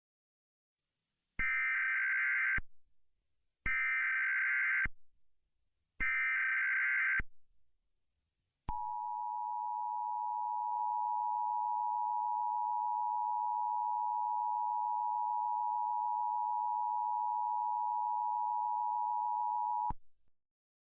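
Emergency Alert System tones: three short bursts of SAME header data, a harsh warbling screech lasting about a second each with short gaps between them. Then the steady two-tone EAS attention signal holds for about eleven seconds and cuts off sharply.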